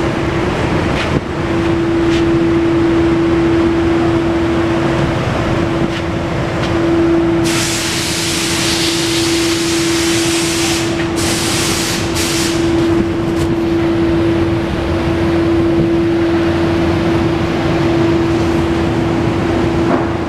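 Steady machine hum and noise of a workshop, with one constant droning tone. About seven seconds in, a loud hiss starts and runs for roughly four seconds, followed by a few short hisses.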